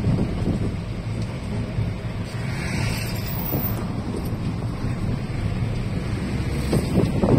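A car being driven at low speed, its engine and road noise heard from inside the cabin, with wind rumbling on the microphone; the rumble swells briefly near the end.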